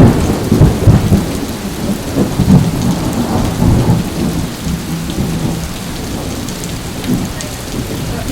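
Rolling thunder over steady rain. The low rumble is loudest at the start and dies away over several seconds, leaving the hiss of the rain.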